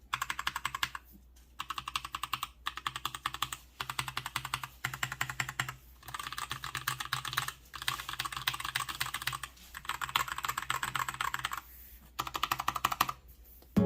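Mstone Rookie 68BT mechanical keyboard being typed on quickly, in runs of rapid key clicks broken by short pauses of under a second.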